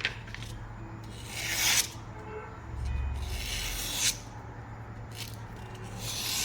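Knife blade, the 14C28N stonewashed edge of a TWOSUN TS517 folding knife, slicing through a sheet of paper in several separate strokes. Each stroke is a short rasping hiss that swells and cuts off.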